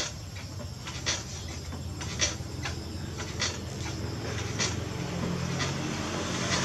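Potter's wheel running with a low steady hum that grows a little stronger near the end, and a sharp click about once a second while a tall wet clay jar is shaped on it.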